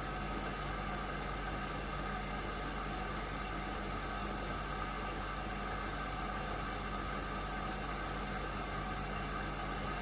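Indesit washing machine running: a steady mechanical hum with a hiss, unchanging throughout.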